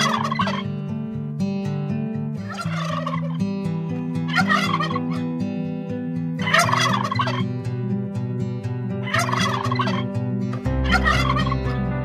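Domestic turkeys gobbling: a rattling gobble about every two seconds, six in all.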